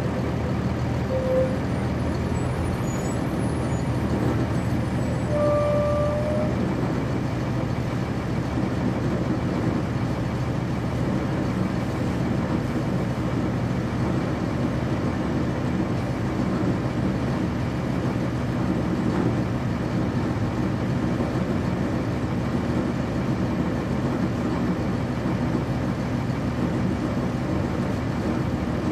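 Interior sound of a 1999 NovaBus RTS transit bus: its Cummins ISC inline-six diesel running steadily, heard from inside the passenger cabin. Two short beeps sound, one about a second in and a slightly longer one about five seconds in.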